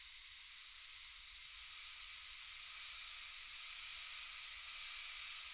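A steady, even high hiss, slowly growing louder, with no tone or rhythm in it.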